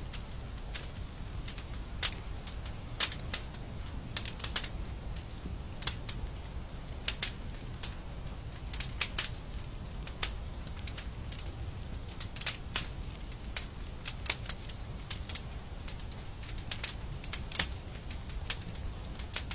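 Wood fire crackling: irregular sharp pops and snaps, several a second at random spacing, over a steady low rumble of the burning fire.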